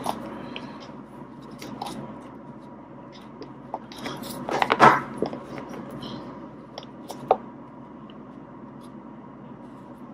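Three-strand nylon rope being worked by hand while its strands are tucked over and under through the lay for an eye splice: scattered rubbing and small clicks, loudest in a short burst about halfway through.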